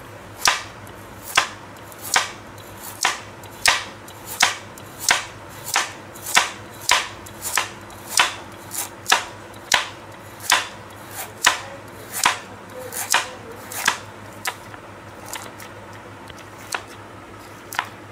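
Meat cleaver chopping a raw carrot into slices on a cutting board: more than twenty sharp knocks, about one every three-quarters of a second, thinning to a few scattered chops over the last few seconds.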